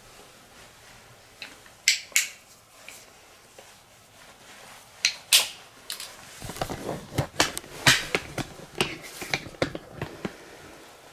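Handling noise from a handheld camera being picked up: a few sharp clicks and knocks, followed from about six seconds in by a quick run of knocks and thumps as it is carried off on foot.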